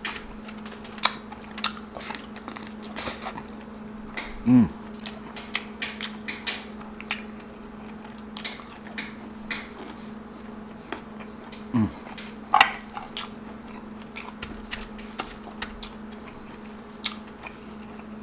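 Close-miked chewing and wet lip smacks from a person eating soft stewed beef and rice by hand, many small clicks a second. Two short, louder falling hums come about four and twelve seconds in, over a steady low hum.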